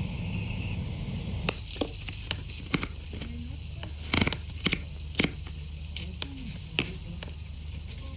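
Scattered sharp clicks and knocks, irregularly spaced, from plastic bottles and containers being handled and filled at the tap of a large plastic water tank, over a low steady hum.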